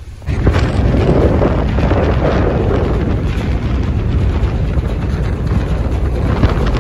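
Wind buffeting a phone's microphone on a moving ferry's open deck: a loud, gusting low rumble that cuts in suddenly a fraction of a second in and carries on unsteadily.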